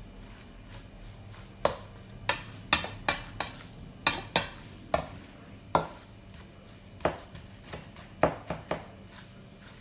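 A utensil stirring ground pork filling in a stainless steel mixing bowl, knocking against the bowl in about a dozen irregular sharp clinks, mixing the seasoning into the siomai filling.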